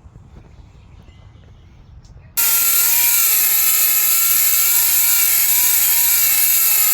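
Faint low background, then about two seconds in an angle grinder with a flap disc cuts in abruptly and runs steadily and loudly: a high whine over a harsh hiss.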